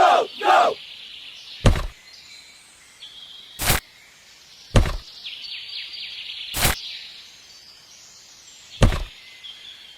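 Five separate sharp knocks, one every one to two seconds, over a faint steady outdoor hiss.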